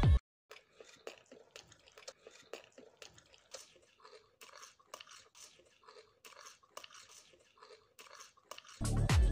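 Faint, irregular crunching and chewing, a few crunches a second, like crisp fried dough balls being bitten and eaten. Electronic music stops at the start and comes back near the end.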